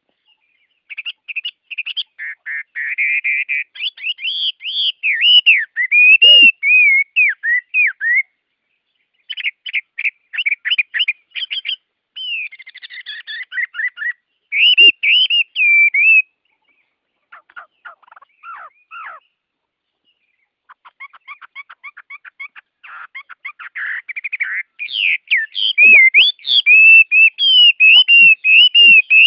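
Songbirds singing: warbling whistled phrases and rapid trills, coming in bursts separated by brief dead-silent gaps. The song grows loudest and densest near the end.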